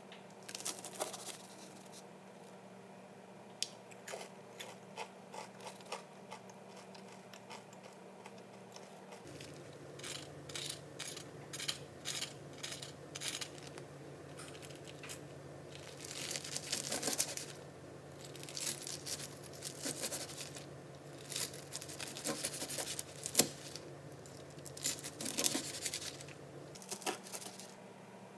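A kitchen knife slicing through fried chicken katsu, its crisp breadcrumb crust crunching and crackling with each cut, the blade knocking on the cutting board through paper towels. The crunching is sparse at first and comes in dense runs from about a third of the way in.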